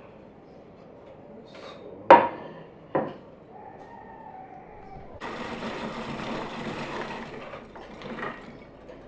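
A ceramic plate knocks sharply on a wooden board about two seconds in, with a second knock about a second later. Then, from about five seconds in, a hand-cranked rotary drum grater grinds hazelnuts in a steady rasp for about two and a half seconds.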